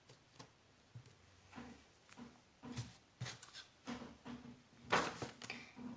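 Puzzle pieces being handled and fitted together: scattered faint clicks and taps, with a louder short rustle about five seconds in.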